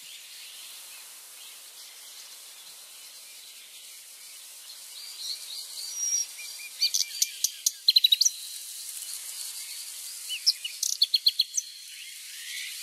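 Small birds chirping, with quick runs of short, sharp notes about two-thirds of the way in and again near the end, over a steady high-pitched hiss.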